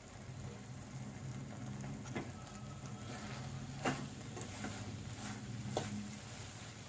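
A spoon stirring and scraping vegetable oats upma in a nonstick pan, with a few light knocks of the spoon against the pan, over a steady low hum.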